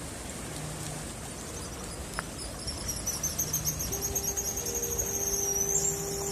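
A guillemot giving its high-pitched whistling call: a fast trill of thin, high notes that begins about halfway through and rises a little near the end, over a steady hiss. A steady low hum comes in during the second half.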